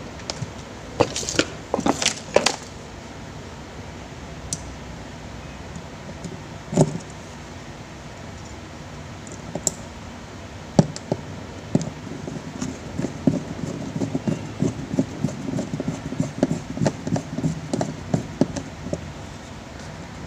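Small clicks, taps and light clinks of hands working on a fan's plastic power plug and small metal parts: a cluster of sharp clicks about a second in, a single knock near seven seconds, then a long run of quick light clicks through the second half.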